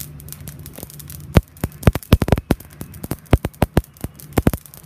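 Cumin seeds popping and crackling on a hot, dry tawa as they roast: irregular sharp pops, at times several a second, in loose clusters.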